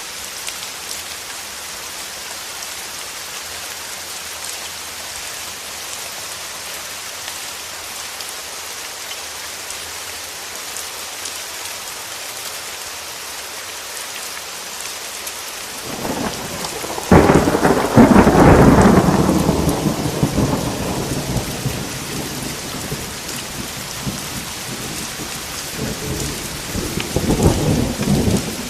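Steady rain falling. About sixteen seconds in, thunder starts as a low rumble, breaks into a loud clap a second later and dies away over several seconds, and a second, softer rumble comes near the end.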